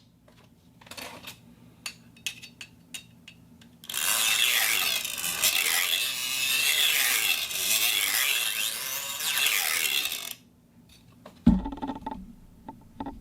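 Thin steel sheet handled for foley: a few light taps and clicks, then about six seconds of continuous scraping and rubbing with wavering, ringing high tones. After a short pause there is a single thump near the end, followed by a few small ticks.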